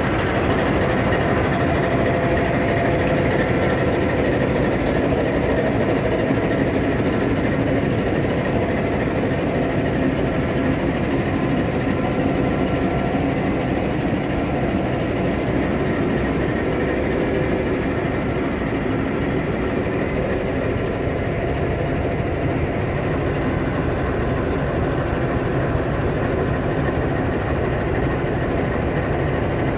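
A GE U18C diesel-electric locomotive's V8 7FDL diesel engine idling steadily, heard close alongside, with a few faint steady tones over the rumble.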